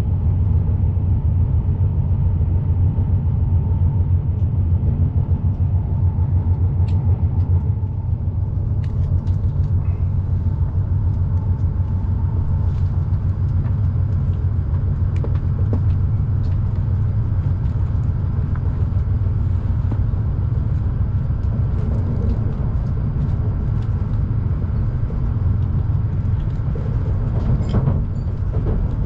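Shinkansen bullet train running, a steady low rumble with a few light clicks. A faint high tone fades out about twelve seconds in.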